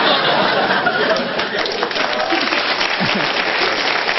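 Studio audience applauding: dense, steady clapping from many hands, with a few voices in the crowd.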